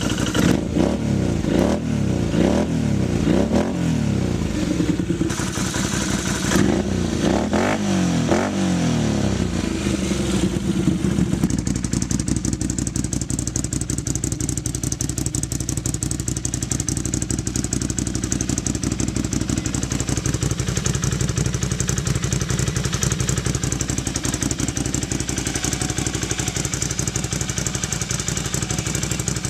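Can-Am Renegade 500 ATV engine through a freshly repacked HMF aftermarket exhaust, blipped repeatedly with quick throttle revs that rise and fall, then settling to a steady idle about eleven seconds in.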